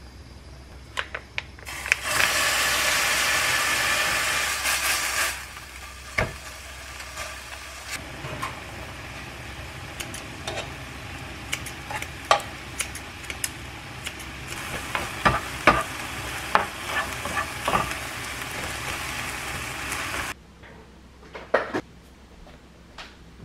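Marinated beef bulgogi sizzling in a hot ceramic frying pan: a loud sizzle about two seconds in as the meat goes in, settling into a steady sizzle. Many sharp clicks of kitchen scissors snipping the meat and tongs against the pan run through it. The sizzle stops abruptly near the end, leaving a few light knocks in a quiet room.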